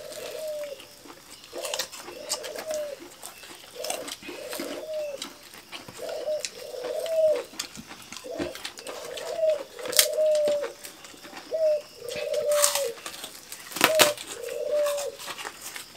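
A dove cooing over and over, short rising-and-falling coos about once a second. Sharp crunches and clicks of people eating are mixed in, the loudest of them near the end.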